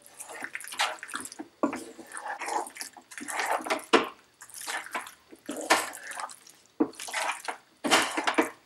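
Wooden spatula stirring thick, stringy cheese-sauced macaroni in a non-stick pan: wet, sticky stirring in irregular strokes about once a second, with a sharp tap of the spatula on the pan about four seconds in.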